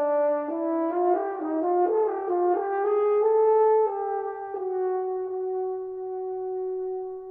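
French horn playing a run of short notes that climbs in pitch, then settling onto one long held note that slowly softens.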